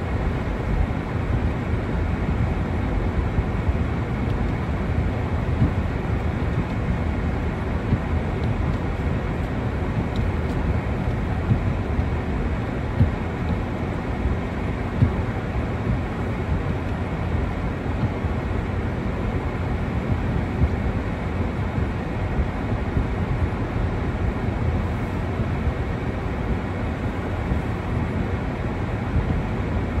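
Steady road and engine noise from inside a moving car's cabin, a low, even rumble.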